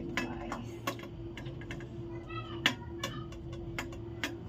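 Metal serving spoon scooping rice out of an aluminium pressure cooker, scraping and clinking against the pot and a stainless steel plate in irregular clicks. A short high-pitched sound rises about two seconds in, with a faint steady hum underneath.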